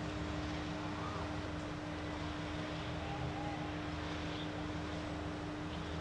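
Fire engine running its water pump: a steady engine drone with a constant hum.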